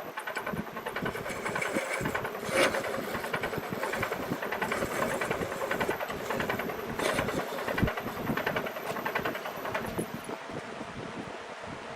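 Wood lathe running with a cutting tool scraping the spinning wood: a steady rough grinding noise full of small rapid knocks, with sharper louder hits about two and a half seconds in and near eight seconds in.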